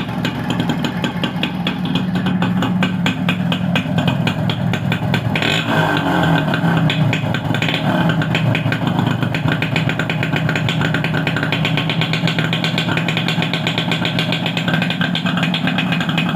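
1993 Yamaha YB100's two-stroke single-cylinder engine running steadily. The note brightens and gets a little louder about five and a half seconds in as the throttle is opened.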